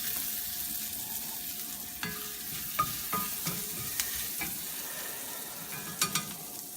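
Onion frying and sizzling in a pan, with a cooking utensil stirring and tapping against the pan several times, giving short metallic clinks.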